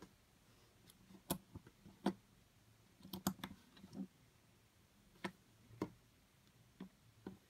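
Plastic Lego bricks clicking and knocking as a small brick-built car is handled, pressed together and set down on a mat: a dozen or so irregular sharp clicks, with a quick cluster about three seconds in.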